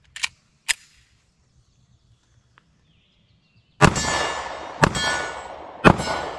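Three 9mm shots from a Glock 26 compact pistol, about a second apart and starting about four seconds in, each followed by the ringing clang of a steel target being hit. Two short clicks come in the first second.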